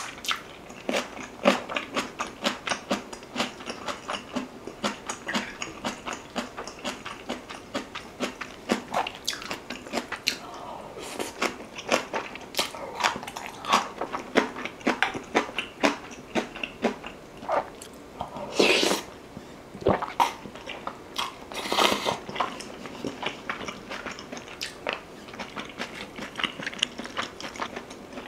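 Close-miked mouth sounds of eating rice in beef-rib soup with kimchi: steady wet chewing clicks and smacks, several a second, with some crunching. Two longer, louder noises come about two-thirds of the way through.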